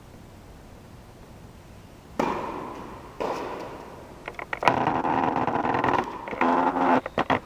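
Tennis ball struck by a racket, a sharp hit that echoes in a large indoor court hall, with a second hit about a second later. Then, from the middle onward, loud crackling and rubbing noise that is louder than the hits.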